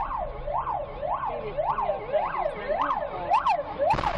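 An electronic siren wailing up and down in pitch, about two sweeps a second. Near the end a loud crackling noise breaks in over it.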